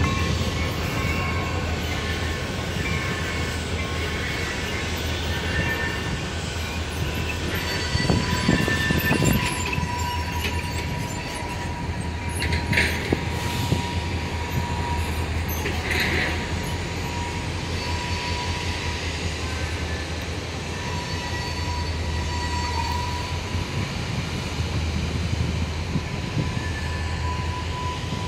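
Freight train led by diesel locomotives rolling past: a steady low rumble with a thin, one-pitch wheel squeal running through it, and a few louder clanks about eight, thirteen and sixteen seconds in.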